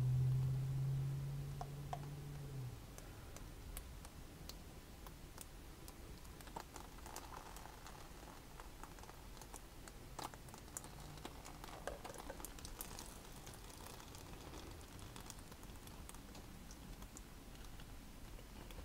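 A low steady hum that cuts off about three seconds in, then faint, scattered light clicks and taps as the wet painted canvas is handled and tilted with gloved hands.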